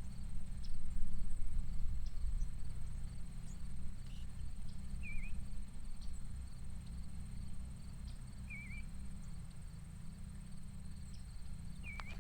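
Outdoor countryside ambience with a steady low rumble underneath. A bird repeats a short, dipping call three times, about every three and a half seconds, over a faint, steady, high-pitched insect trill.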